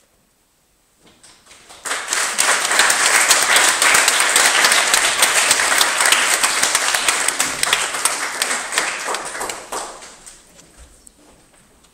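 Audience applauding: clapping starts about a second in, swells quickly and holds steady, then dies away near the end.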